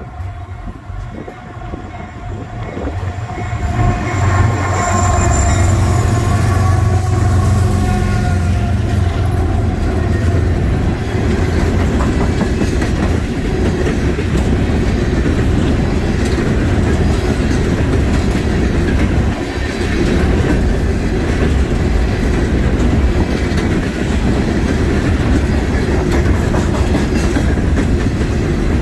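Norfolk Southern empty coal train passing: the diesel locomotives approach and go by, getting much louder about four seconds in, then the empty coal hopper cars roll past with a steady rumble and clickety-clack of wheels over the rails.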